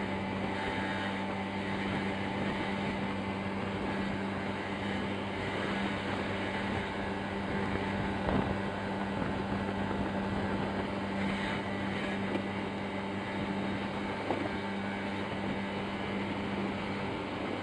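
Piaggio Zip scooter's small engine running while riding, a steady drone that holds one pitch throughout, as at a constant cruising speed.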